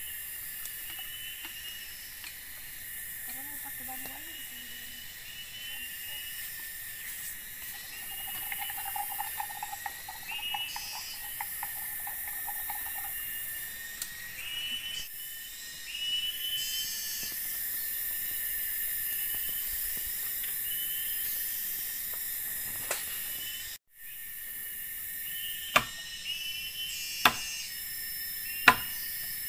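Steady high hiss of forest insects, with a short chirping call repeating every second or two. Near the end come four sharp knocks about a second and a half apart.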